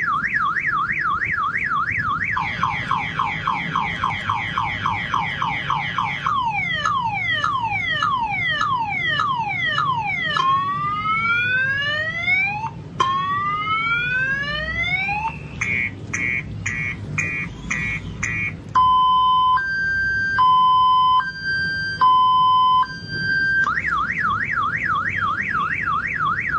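Car alarm siren cycling through its tone patterns. It goes from a fast up-and-down warble to quicker falling chirps, then slow falling whoops and rising sweeps, a rapid beeping, and a two-tone high-low alternation of about a second per tone. Near the end it returns to the fast warble.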